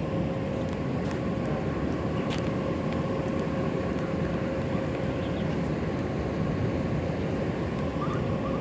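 Steady low outdoor rumble with a constant mid-pitched hum running through it.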